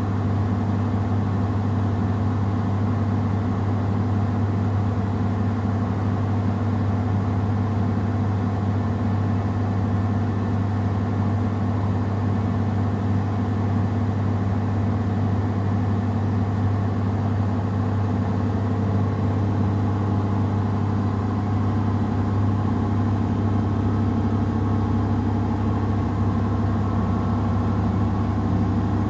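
Samsung WW70T4020EE front-loading washing machine on a 1200 RPM drain/spin programme with clothes in the drum, spinning steadily with an even low hum.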